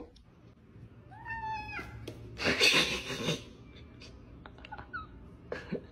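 A domestic cat meows once, a short high meow about a second in. Soon after comes a brief loud burst of noise, then a few soft clicks.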